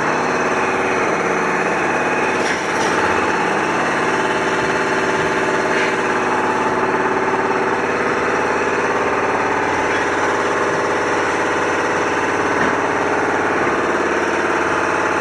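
Construction site noise: a machine's engine running steadily at a low, even pitch, with a few brief metallic clatters about three and six seconds in.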